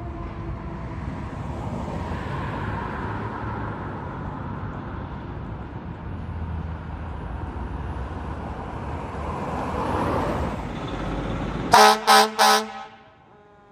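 Fire engine running as it pulls out on a call, then three short blasts of its air horn near the end.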